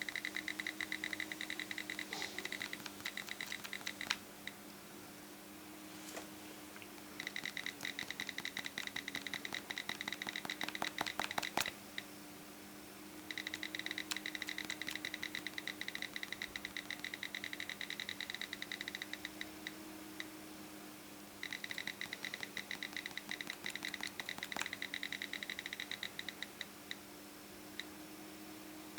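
iPhone picker wheel ticking rapidly as it is scrolled through the years, in runs of several seconds with short pauses between. A low steady hum runs underneath.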